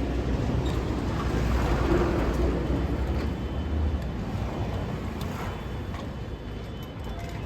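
Low rumble of a motor vehicle's engine running close by, fading after about four seconds, with a few faint clicks.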